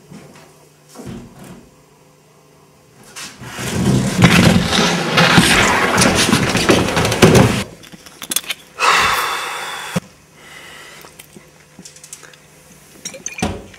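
Skateboard wheels rolling on an indoor ramp: a loud rumble for about four seconds, then a shorter burst ending in a sharp clack.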